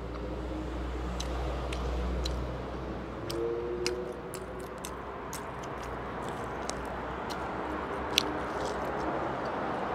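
A person chewing and biting barbecued chicken held in the fingers: scattered wet mouth clicks and smacks over a low steady hum, with one sharp click a little after eight seconds.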